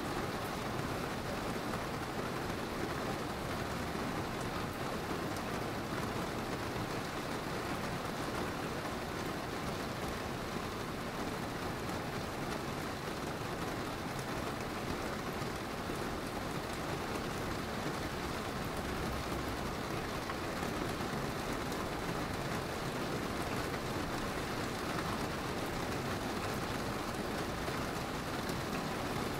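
Rain falling steadily, an even hiss of drops with no distinct thunderclap.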